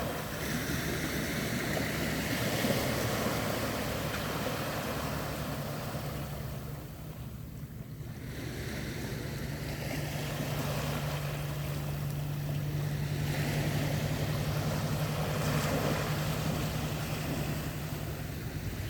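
Sea waves washing in swells that rise and ebb, easing off about seven seconds in and building again, over a steady low hum.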